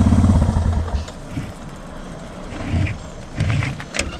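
Bus engine idling with an even pulse, then switched off about a second in. A few short knocks come near the end.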